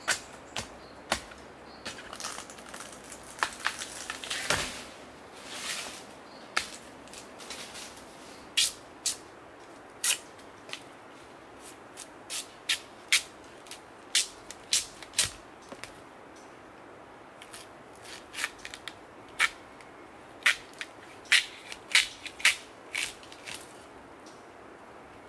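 Machete striking and shaving a long split strip of wood: sharp cracking strokes in irregular runs. A few seconds in there is a stretch of rustling and tearing noise.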